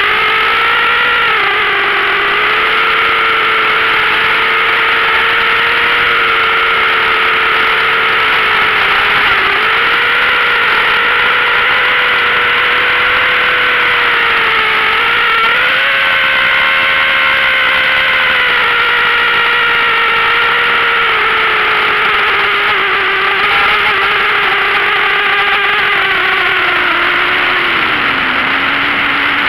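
ZMR250 FPV quadcopter's electric motors and propellers whining, heard close up from the onboard camera. The pitch climbs sharply at lift-off, then rises and falls with the throttle, and drops lower near the end.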